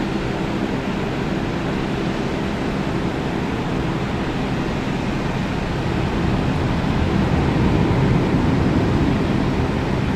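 Airbus A330-323 airliner's two Pratt & Whitney PW4000 turbofans at takeoff thrust, heard as a steady deep rumble and rush as the jet climbs away. It swells a little louder from about six seconds in.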